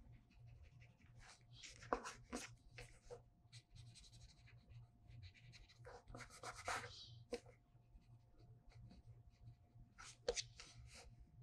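Faint scratching and brushing of a Pentel brush pen's tip drawn across drawing paper in short strokes, coming in clusters, the loudest about two seconds in, around six to seven seconds in, and near the end.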